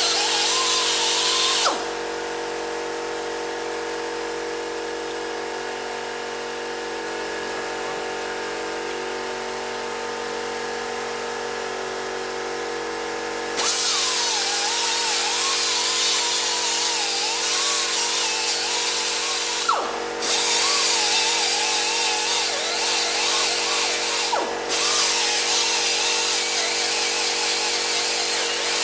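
Angle grinder grinding down spot welds on a steel repair panel, the motor's pitch wavering under load. After a short first burst only a quieter steady hum remains for about twelve seconds, then grinding resumes and runs on with two brief breaks.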